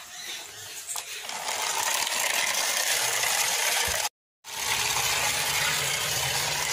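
Small electric motor of a homemade cardboard toy truck running as the truck drives along concrete: a steady mechanical whir with a low hum underneath, broken off briefly about four seconds in.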